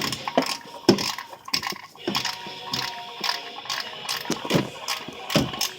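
Socket ratchet clicking in short, irregular runs as the oil drain plug is threaded back in and tightened.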